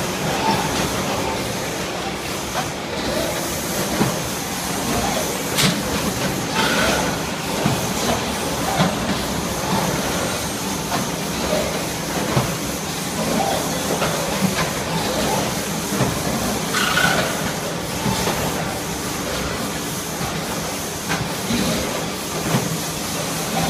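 Pouch packing line running: a steady clatter of conveyors and packing machinery, broken by irregular mechanical clacks and a few short bursts of compressed-air hiss from the pneumatic pick-and-place and case-packing equipment.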